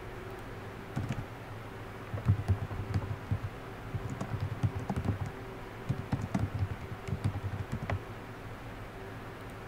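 Typing on a computer keyboard: a run of quick key clicks that starts about a second in and stops about eight seconds in, over a steady low hum.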